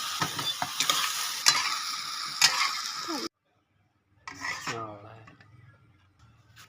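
Food frying and sizzling in a pan while it is stirred, with sharp scrapes and knocks of the utensil against the pan. It cuts off abruptly about halfway through, and is followed by a short sound that falls in pitch.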